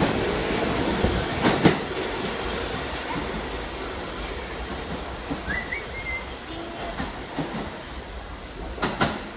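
R68A subway train departing, its wheels clacking over the rail joints with a few sharp knocks; the running noise fades steadily as the train pulls away into the tunnel.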